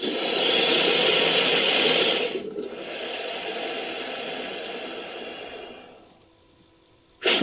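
Long breathy creature hiss, an Eryops sound effect built from crocodilian recordings. It is loud for about two seconds, then softer, and trails away about six seconds in.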